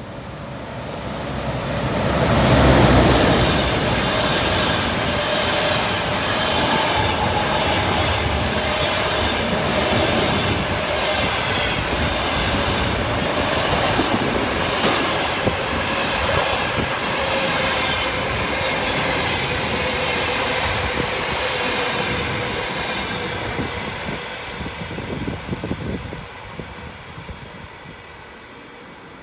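A passenger train hauled by an EP20 electric locomotive passes through at speed. It is loudest as the locomotive goes by about three seconds in, then the coaches roll past steadily with clickety-clack wheel noise. The sound fades near the end as the last coach pulls away.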